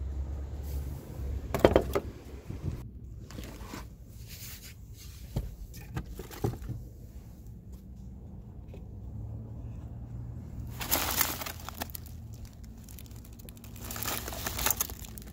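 A sharp knock about two seconds in, then scattered clicks and bouts of paper and plastic rustling as a hand rummages through a car's glovebox.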